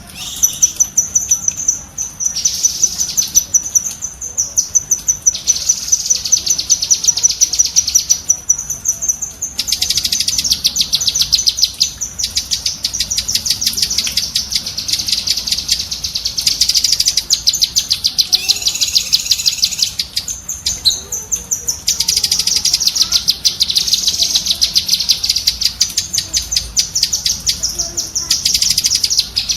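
Cucak kinoi bird giving its 'tembakan' song: long runs of rapid, high-pitched chattering notes, many per second, broken by short pauses.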